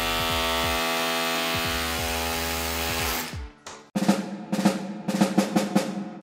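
Rotary hammer running steadily on hammer action for about three seconds, driving a wedge anchor with a cut-down, notched bit, then stopping. It is followed by a short burst of drum-heavy music with sharp rhythmic hits.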